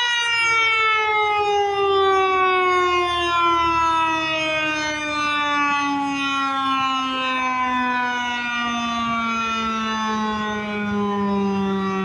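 Eclipse 8 outdoor warning siren winding down during a test: its tone, held steady just before, falls slowly and evenly in pitch and is still sounding at the end.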